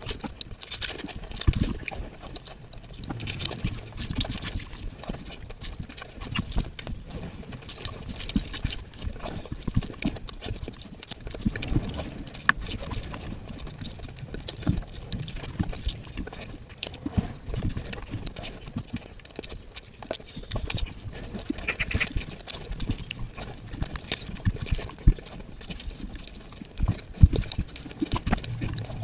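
A person eating close to the microphone: irregular wet clicking and smacking mouth sounds as food is chewed.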